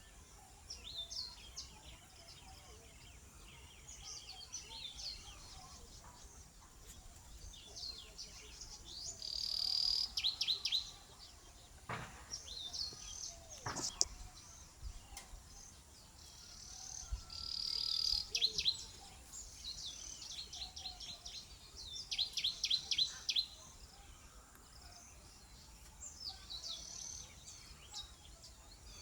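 Small songbirds chirping, with several bursts of fast trilled notes. Two sharp clicks come about twelve and fourteen seconds in.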